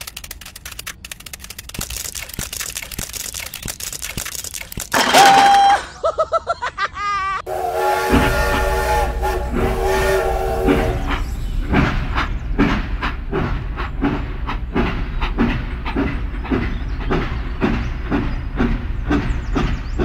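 Toy steam locomotive sound effects: a loud whistle toot about five seconds in, a warbling whistle, then a steady chord-like whistle, followed from about eleven seconds by a regular chugging clack about twice a second over a low rumble.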